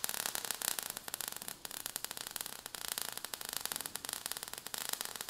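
Crackling, fizzing sound effect of burning sparks: a steady hiss full of dense, fast crackles.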